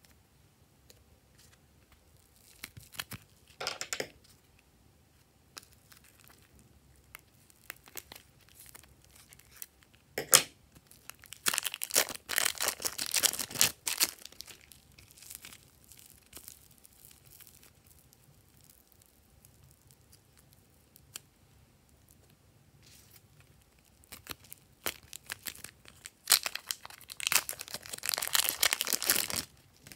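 Plastic zip bag crinkling and rustling in short bursts as fingers handle and work soft clay out of it, with a sharp click about ten seconds in. The longest stretches of crinkling come around twelve seconds in and near the end.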